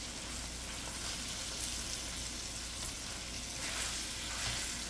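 Chicken pieces and green chillies sizzling in oil in a nonstick wok, stirred and turned with a plastic spatula. A steady frying hiss, with a few louder spatula strokes near the end.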